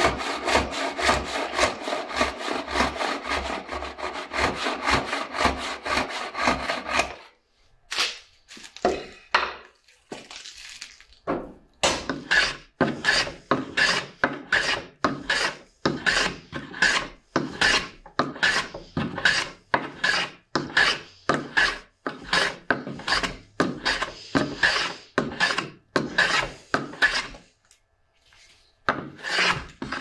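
Hand woodworking with no power tools. Quick, even back-and-forth strokes of a hand saw cutting a board for the first seven seconds. After a short pause, a long run of slower, steady hand-tool strokes on wood, about two a second.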